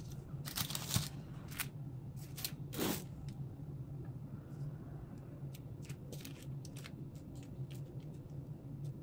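Baking parchment crinkling and scraping twice in the first three seconds as the paper-lined baking tray is handled, over a steady low hum. After that come light, scattered ticks as a knife tip scores the puff pastry squares on the paper.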